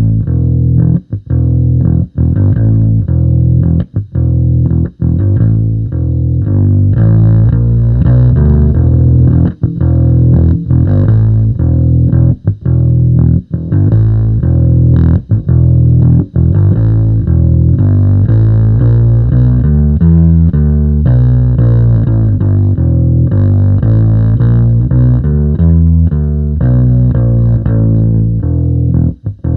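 Electric bass riff played with a pick through a Sonicake B Factory bass preamp, with short choked stops between phrases.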